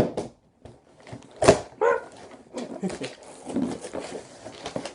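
Cardboard box and packaging being handled and pulled open, with sharp knocks, clicks and crackling. A short pitched yelp comes about one and a half seconds in.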